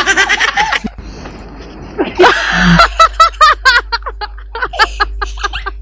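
Laughter and voices: a short laugh at the start, a loud burst about two seconds in, then a run of short, quick laughing bursts.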